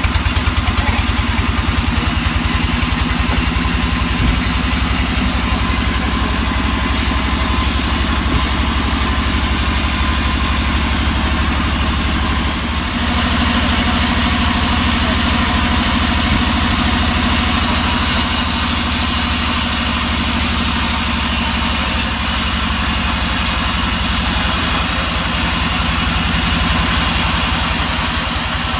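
Sawmill engine running steadily, with an even pulsing beat; about halfway through, the sound dips briefly and then turns hissier and harsher.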